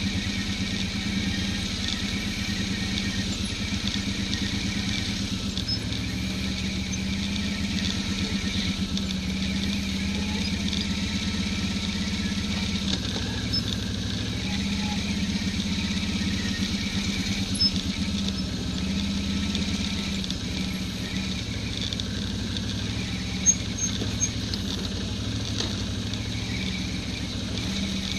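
ATV (quad) engine running at an even pace as the machine rolls along, its note swelling and easing a little. Two short sharp knocks in the latter part, the second and louder one near the end.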